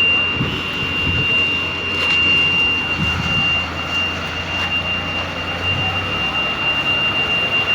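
Low steady drone of heavy road-vehicle engines, swelling a little now and then, with a constant thin high-pitched tone over it.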